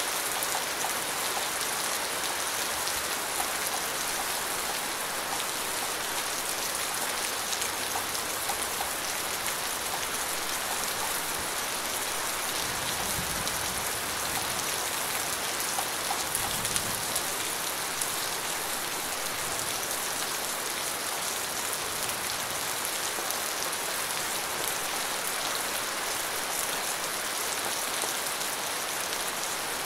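Steady rain falling on a surface: a dense, even hiss of drops with scattered individual drop ticks.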